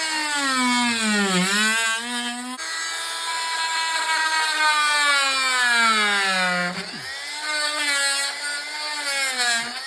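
Corded oscillating multi-tool running as its blade cuts into a wooden door jamb; its steady whine drops in pitch each time the blade bears into the wood, most clearly twice, and rises again as the load eases.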